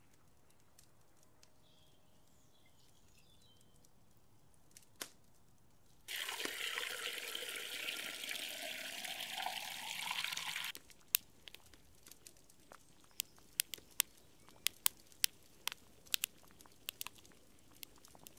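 Water pouring in a stream into a metal kettle for about four and a half seconds, stopping suddenly. Then a wood fire crackling with irregular sharp pops.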